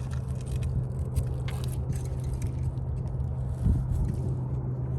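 Steady low hum of a running engine, with scattered faint clicks and one louder knock near the end.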